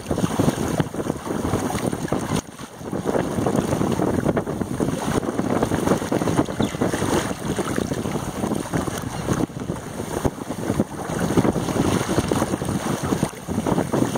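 Wind buffeting the microphone over the rush and splash of water along the hull of a small sailing dinghy driving through chop in a strong breeze. The wind noise briefly eases about two and a half seconds in.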